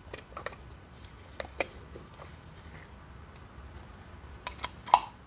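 A few light clicks and taps of a Comandante C40 hand coffee grinder being assembled: its glass catch jar is screwed onto the wooden body and its steel crank handle is brought up to fit on top. The loudest click comes near the end.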